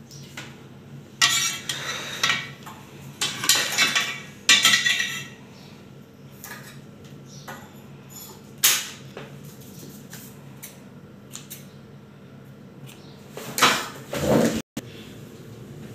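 Handling noises at a repair bench: knocks, clicks and scrapes of tools and small parts on the glass of an LCD panel, busiest in the first few seconds and again near the end, over a steady low hum.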